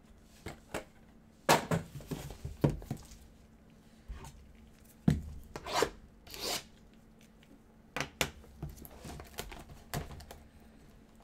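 Gloved hands handling trading-card boxes and a foil-wrapped card pack: scattered sharp knocks and clicks of cardboard and plastic, with short rustling and tearing of packaging in three clusters.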